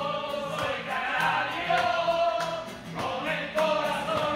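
A group of men singing together, accompanied by a strummed acoustic guitar.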